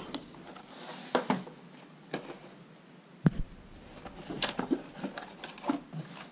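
Handling noise of a folded plastic mini drone and its remote being lifted out of a foam-lined carry case and set on a wooden table: scattered light clicks and soft knocks, with one low thump a little past three seconds in.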